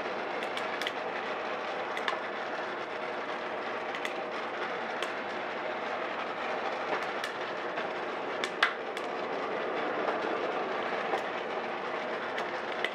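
Steady whir of a turbo convection oven's fan over a West Bend Stir Crazy coffee roaster, with about a dozen scattered sharp snaps of coffee beans cracking. The loudest snap comes a little past the middle. These sparse cracks come as first crack has ended and the first cracks of second crack are starting.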